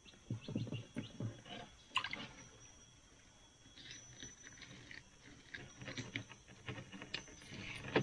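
Irregular small splashes and knocks of water and handling, over a steady high drone of insects.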